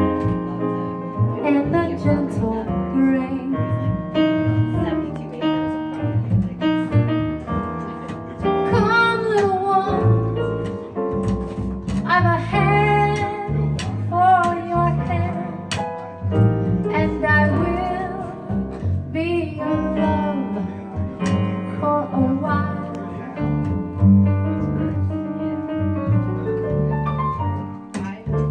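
Live jazz: a woman singing held, wavering notes into a microphone, backed by keyboard chords on a piano sound and a plucked upright double bass.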